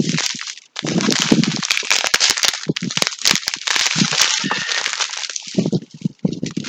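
Small plastic bags of diamond-painting resin drills crinkling as they are handled, with many small clicks through the crinkling.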